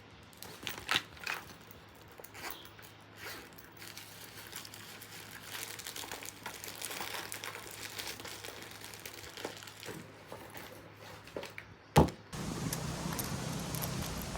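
Rustling and crinkling of things being handled, with scattered small clicks and taps. A single sharp, loud click comes near the end, followed by a steadier background hiss.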